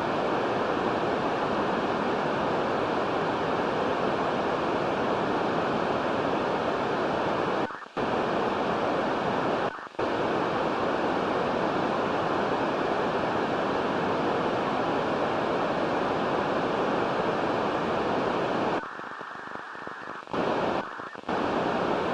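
Icom IC-736 HF transceiver's receiver in USB putting out a steady rushing noise with a faint steady whistle in it. This is the noise heard with the attenuator switched on, which the owner calls digital noise on receive. It cuts out briefly twice, about eight and ten seconds in, and drops much lower for about a second and a half near the end.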